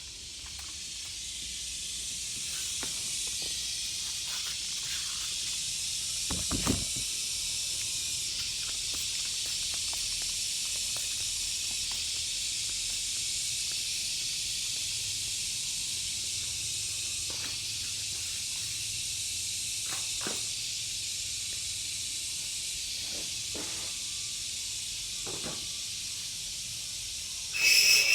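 Steady hissing, with scattered faint clicks and one low thump about seven seconds in; a louder, briefly ringing sound comes right at the end.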